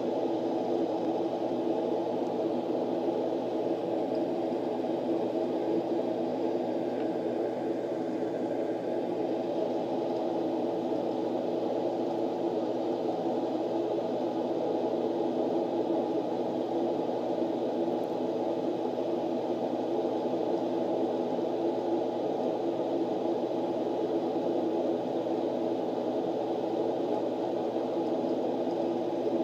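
Steady background hum and hiss at an even level, with no separate sounds standing out.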